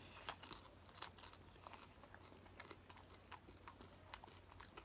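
Faint crunching and chewing of a hard-shelled egg roll: a scatter of small, irregular crackles, the clearest about a second in.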